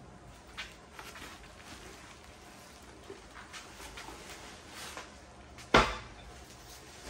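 Plastic stretch wrap crinkling on a heavy steel lift frame as it is carried, with one loud thump near the end as the frame is stood down on the concrete floor.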